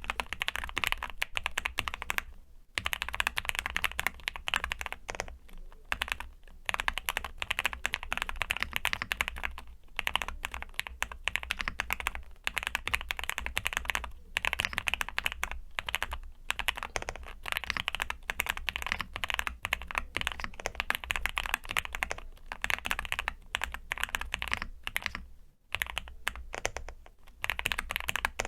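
Typing on a custom 65% mechanical keyboard (QWERTY keys QK65) with lubed Gateron Ink switches on a POM plate. Fast, continuous keystrokes with short pauses between bursts.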